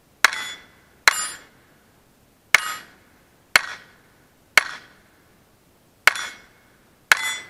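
Browning Buck Mark .22 LR pistol firing seven shots at a steady pace of about one a second, each a sharp crack. Several shots are followed by the brief ringing of a steel plate target being hit.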